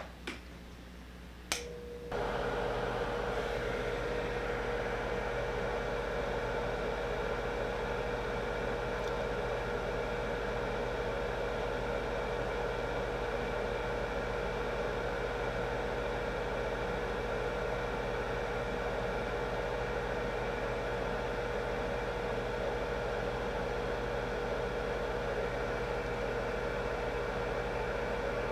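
Two sharp clicks, then about two seconds in a small DC fan for a solder fume extractor starts and runs steadily: an even whir with a constant mid-pitched tone.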